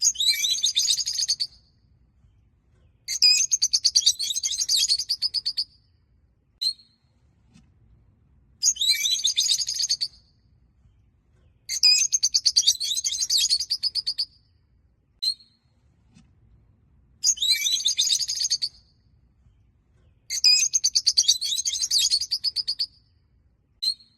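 Rosy-faced (peach-faced) lovebirds chattering in repeated bouts of rapid high chirps, each about two to three seconds long, with a single short chirp in some of the pauses between bouts.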